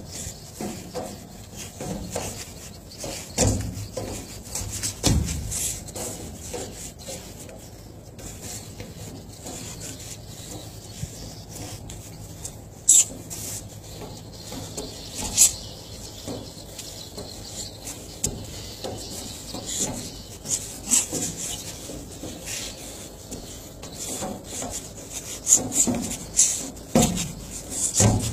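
A person shadow boxing: irregular scuffs and thumps of feet moving and stepping on the deck, with short sharp hissing bursts, several in quick succession near the end.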